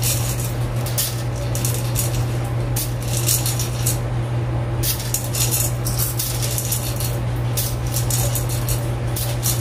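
Dried navy beans poured from a small cup into a hand and sifted over a wire-mesh colander, rattling with many small irregular clicks.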